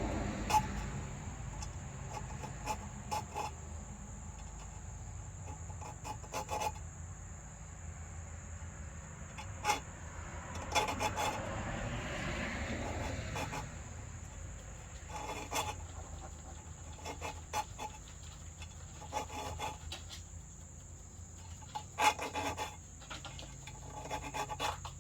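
Hand file scraping across the teeth of a circular saw blade for a brush trimmer, sharpening the teeth and gullets in short runs of strokes with pauses between them.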